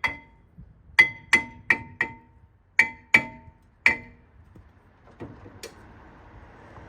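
Hammer blows on a steel brake rotor, each ringing with the same clear metallic tone: eight strikes in about four seconds, unevenly spaced, then two fainter knocks and a low shuffling noise.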